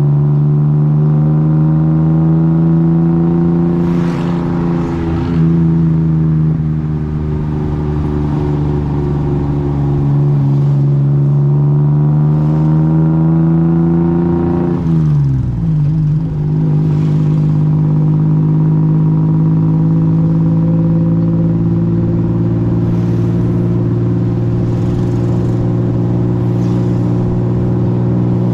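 Tuk tuk engine running steadily under way, heard from on board. Its note dips sharply about halfway through, then holds steady again.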